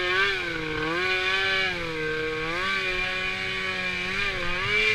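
Polaris RMK snowmobile's two-stroke engine running hard under load climbing a snowy hill, its pitch rising and falling repeatedly as the throttle is worked.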